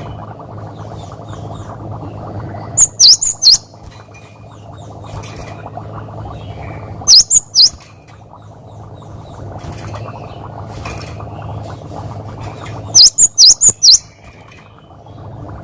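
Cinereous tit (gelatik batu) singing short phrases of sharp, high whistled notes: three notes about three seconds in, three more about seven seconds in, and five in quick succession near the end. A steady low background noise runs underneath.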